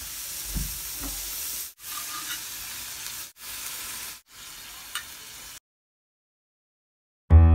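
Slices of pork belly sizzling in a miniature grill pan: a steady frying hiss, broken by a few short gaps, that cuts off about two seconds before the end.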